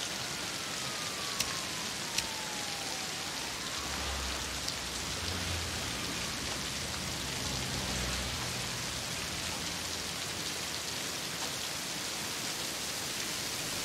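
Steady heavy rain falling on pavement. A faint tone slides downward over the first few seconds, a couple of sharp ticks come early, and a low rumble rises about four seconds in and fades after about eight.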